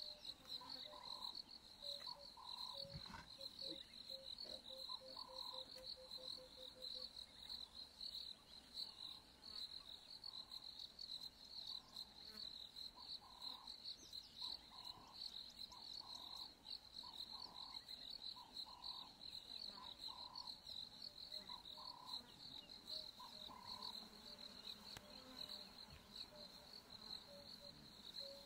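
Faint, steady insect chorus of crickets, a shrill pulsing trill held throughout, with a lower short call repeating about once a second and a quick run of soft ticks in the first few seconds.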